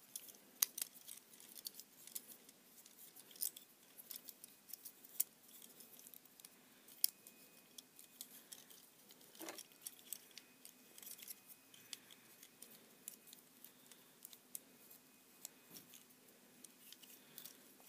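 Plastic parts of a Transformers Beast Hunters Deluxe Arcee action figure clicking and snapping as it is unpegged and transformed by hand from motorbike to robot mode: faint, irregular clicks with a few sharper snaps.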